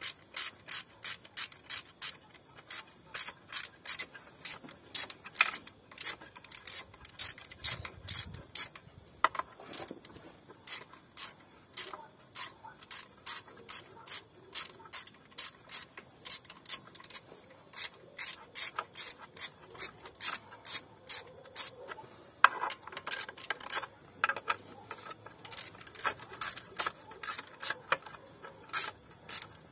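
Hand ratchet wrench clicking, about three to four clicks a second in runs with short pauses, as the bolts of the engine's plastic top cover are undone. There are a couple of brief rubbing knocks of tool on cover.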